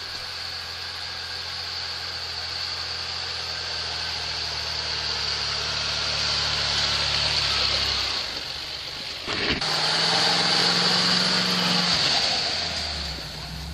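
Engines of lifted off-road pickup trucks running as they drive slowly through deep snow: a steady engine hum with a hiss over it. About nine seconds in it breaks off sharply and a second truck's engine takes over.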